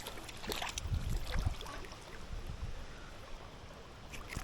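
River water sloshing and moving, with a few light splashes and knocks between about half a second and a second and a half in.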